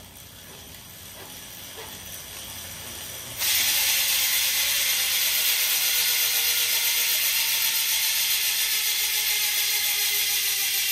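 Road bike's drivetrain whirring quietly as the crank is spun by hand. About three and a half seconds in, the rear hub's 60-tooth star ratchet freewheels as the wheel coasts, giving a sudden, loud, fast, even buzz of ratchet clicks.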